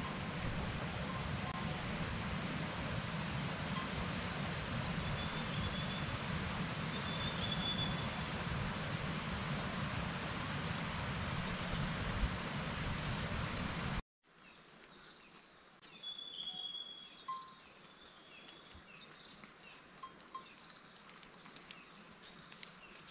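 Outdoor mountainside ambience: a steady rushing noise with a few faint high chirps, then after a sudden cut about fourteen seconds in, a much quieter background with scattered high chirping and light clinks and ticks.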